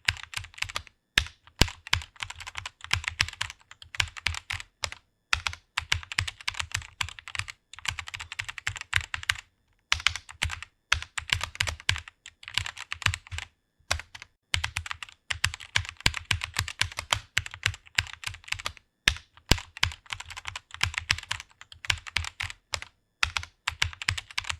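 Rapid typing on a computer keyboard: fast runs of key clicks broken by short pauses of about half a second to a second.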